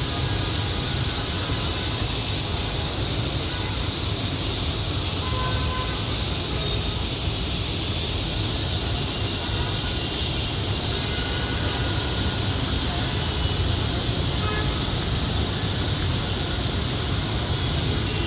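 Thousands of small birds chattering together as they settle to roost in one tree, a continuous dense din, over the steady rumble of city traffic.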